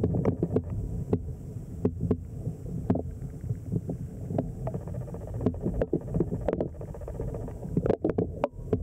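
River current heard underwater: a low, uneven wash of flowing water with irregular sharp clicks and knocks, several a second at times.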